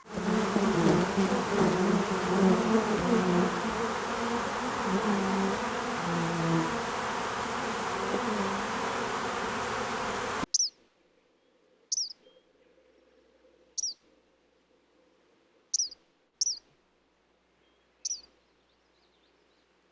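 Insects buzzing loudly with a wavering hum, cut off abruptly about ten seconds in. Then short, high, falling bird chirps, one every second or two, over a quiet background.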